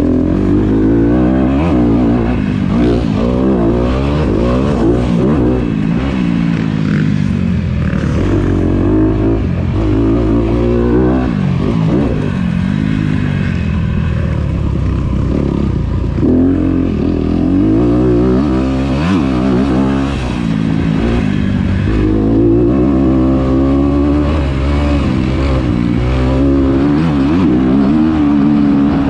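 Dirt bike engine heard from on the bike, revving up and falling back again and again as the rider accelerates, shifts and rolls off around a motocross track, with wind noise and chassis clatter.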